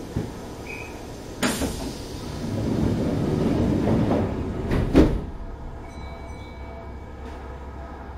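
Kintetsu 6600-series train's sliding doors closing: a sudden hiss about a second and a half in, a rumbling swell as they slide, and a sharp thump about five seconds in as they shut. A steady hum with faint thin whining tones from the standing car follows.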